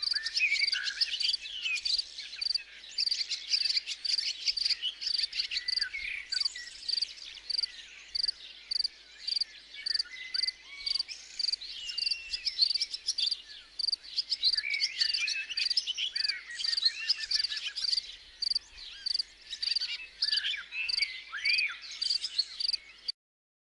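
Crickets chirping in a steady rhythm, about two chirps a second, with several birds singing and calling over them. The sound cuts off suddenly just before the end.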